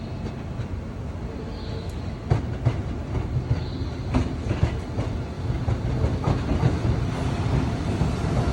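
Tobu 70000 series electric train running, its wheels clacking over rail joints above a steady rumble, getting louder near the end.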